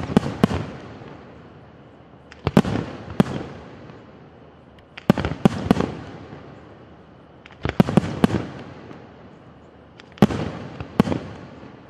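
Aerial firework shells bursting in volleys: a cluster of several sharp bangs about every two and a half seconds, five times, each cluster dying away in a rumble before the next.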